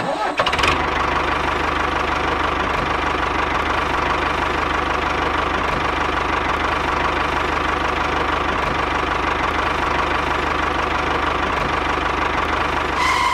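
Diesel tractor engine running at a steady idle-like pace, with an even, rapid low chugging and no change in speed.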